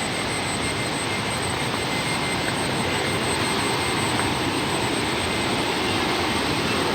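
Steady rushing roar of water with a faint, thin, high steady whine above it.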